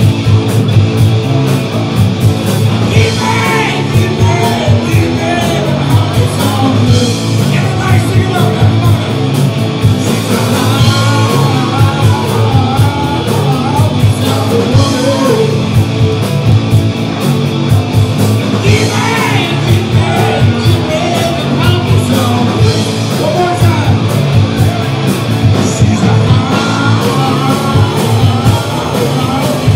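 Live rock band playing loud, with electric guitar, drums and a singer.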